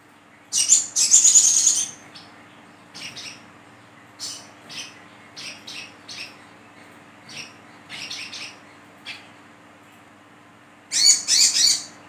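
Brown-throated sunbird (sogok ontong) giving sharp, high chirps. A loud chattering burst comes about half a second in, then a string of short single chirps, then another loud chattering burst near the end.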